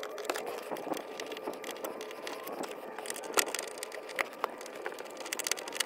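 Phillips screwdriver turning out the screws of a pickup's sun visor hinge and mount: scattered small clicks and scrapes of the metal bit and the plastic mount, over a faint steady hum.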